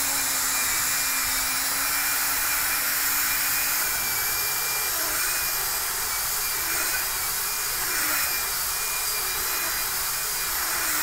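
Rotational atherectomy (RotaPro Rotablator) burr's air turbine spinning at high speed during a polishing run: a steady high-pitched whine over a strong hiss, holding an even pitch throughout.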